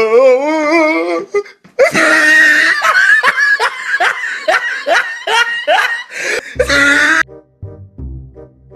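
A wavering, drawn-out voice, then loud hearty laughter in quick repeated bursts, about three a second. Near the end the laughter stops and background music with a low beat carries on.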